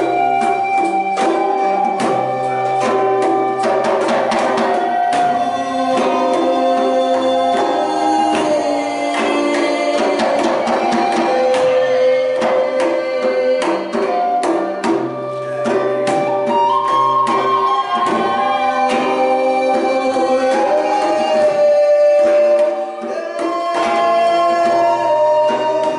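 Live acoustic jam: two wind instruments play held melody lines over an acoustic guitar and hand percussion.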